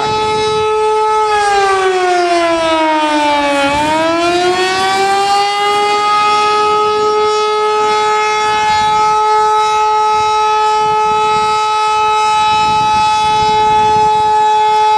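Outdoor tornado warning siren wailing on several tones at once. About a second in, its pitch sinks for a couple of seconds, then climbs back and holds steady.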